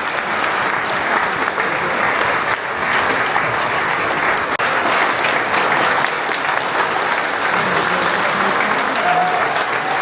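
Concert audience applauding steadily, greeting a male voice choir as it is introduced.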